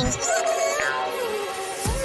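Background music of a children's cartoon, with steady and gliding melodic notes.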